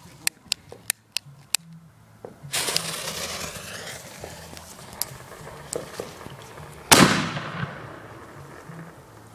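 Consumer aerial fireworks going off: a quick run of sharp cracks, then a loud burst about two and a half seconds in that trails off in a long hiss, and another loud bang near seven seconds that fades out the same way.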